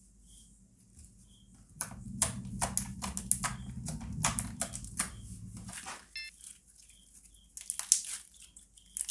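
Hands pressing, poking and squeezing white toothpaste slime on a tabletop: a quick run of sticky clicks and small pops, with a low rumble of hands on the table, from about two seconds in until about six seconds, then a few more clicks near the end.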